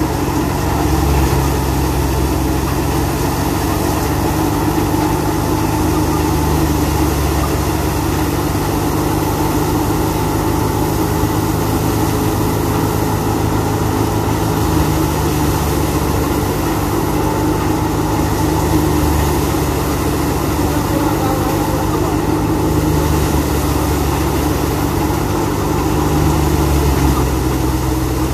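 85 hp New Holland tractor's diesel engine running steadily under load, driving a wheat thresher through its PTO, together with the thresher's drum whirring and straw being threshed as sheaves are fed in.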